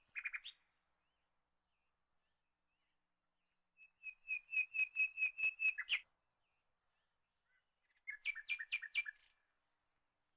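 Bird chirping in quick runs of sharp, evenly spaced high notes: a few at the start, a run of about ten over two seconds in the middle, and a shorter run of two-toned chirps near the end.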